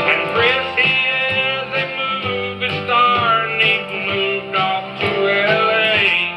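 Playback of a test cut on a 7-inch Lexan disc made with a truncated tungsten stylus: a country-style song with guitar and a singing voice, with little top end and a quiet groove.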